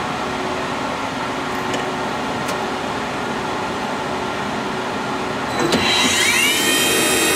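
Star SA16R CNC Swiss-type lathe running a program: a steady machine hum, then near the end its spindle drives spin up, several whining tones rising quickly in pitch and settling into a steady, louder high whine.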